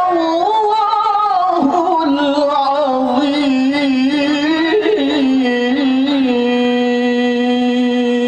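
A male qari reciting the Quran in melodic tilawah style, one voice winding through ornamented runs. It settles into one long held note over the last two seconds, the closing phrase of the recitation.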